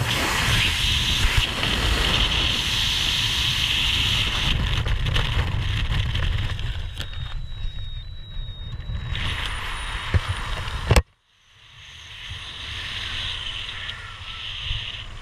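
Heavy wind rush on a helmet-mounted action camera's microphone in skydiving freefall, easing after about six seconds as the parachute opens to lighter, patchier wind under the canopy. A faint steady high tone sounds briefly around the middle, and a sharp click about eleven seconds in is followed by a moment of silence before soft wind returns.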